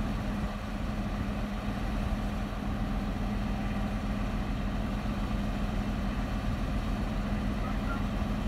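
Truck-mounted crane's diesel engine running steadily with an even low hum, powering the hydraulic crane while it holds and moves a suspended cabin cruiser.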